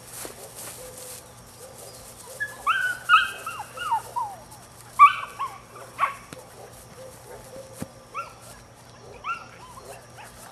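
Nine-week-old Belgian Malinois puppy giving a run of short, high yips and barks from about two to six seconds in, then a few fainter yips near the end.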